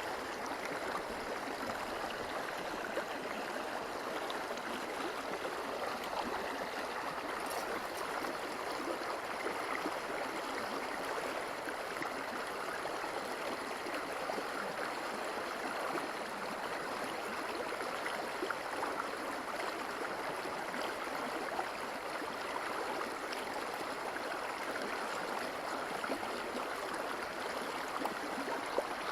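River water flowing steadily, an even rushing.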